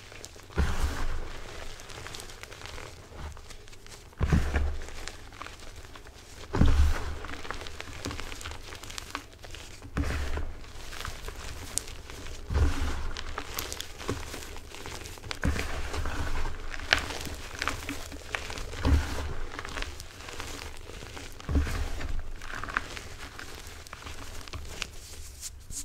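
Hands crushing and squeezing crumbled Asana gym chalk mixed with shaving cream and glitter, making a soft crunching and crackling with small clicks. A dull low thump comes about every three seconds as handfuls are pressed down.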